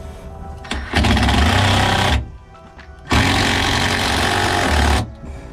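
A small electric motor run in two bursts, the first about a second long and the second nearly two seconds, with a short pause between.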